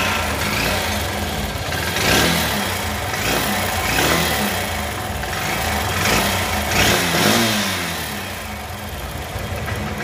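Air-cooled single-cylinder motorcycle engine running and revved up several times, with a frog-like metallic "tar tar tar" rattle from the engine balancer. The rattle comes from hardened balancer rubbers and a broken balancer spring.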